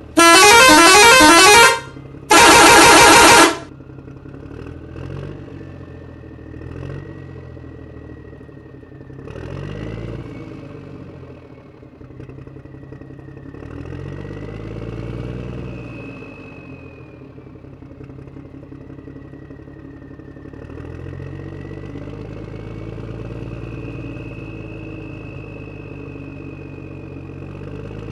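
Two loud vehicle horn honks, each a second or so long, one right after the other. Then a vehicle engine runs for the rest of the time, its pitch slowly rising and falling.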